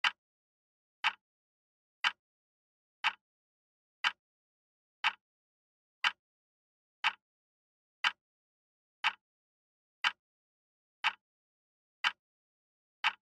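Countdown-timer ticking sound effect: short, sharp clock ticks, one a second and evenly spaced, with silence in between.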